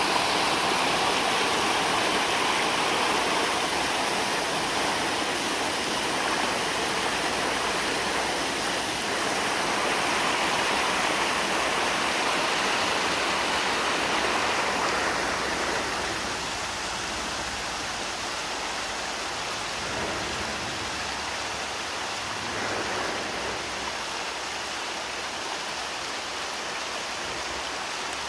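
Mountain valley stream flowing, a steady rush of water that drops a little in level about halfway through.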